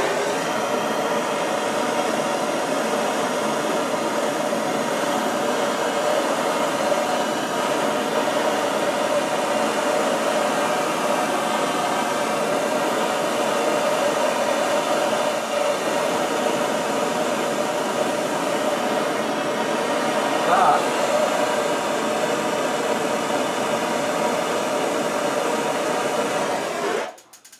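Hose-fed gas soldering torch burning with a steady hiss as it heats a copper pipe sweat fitting for soldering, cutting off near the end.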